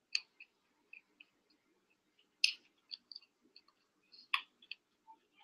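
Broccoli crunching as it is chewed and broken apart: scattered crisp clicks and crackles, with three louder crunches, near the start, about halfway and near the end.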